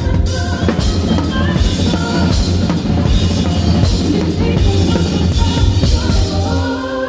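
Live band playing loudly, with a full drum kit and bass guitar driving the music. Near the end the drums and bass cut out.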